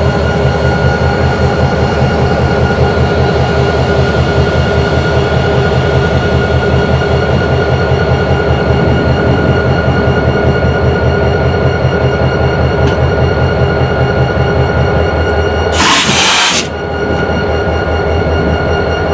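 Two SD40-2 diesel-electric locomotives with EMD 16-cylinder two-stroke engines idling, a steady low throb with rapid pulsing and a constant high whine over it. About sixteen seconds in, a short hiss cuts across, under a second long.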